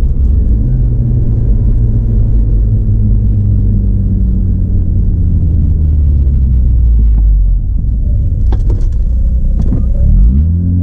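Mazda RX-8's rotary engine droning steadily while the car drives along, then revving up sharply near the end and swinging in pitch.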